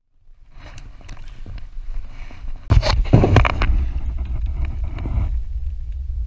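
Wind buffeting the microphone over a steady low rumble of water against a small skiff's hull, with a loud burst of splashing about three seconds in as a hooked fish thrashes at the surface.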